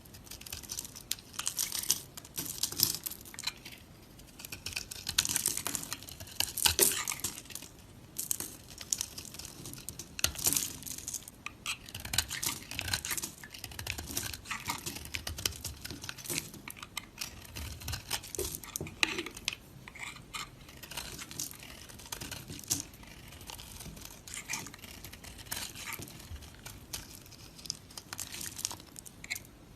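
Close-up crackling, crunching and tearing of a soft material being squeezed, pulled or cut, in dense irregular clicks throughout.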